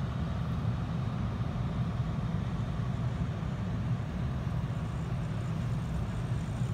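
Steady low rumble of wind on the microphone, with no separate events standing out.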